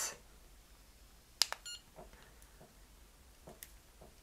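Quiet button click on a DEPLUX Trilumos LED neck-lifting device, followed by a short series of electronic beeps as the button is pressed to step the vibration intensity up. A second, fainter click comes near the end.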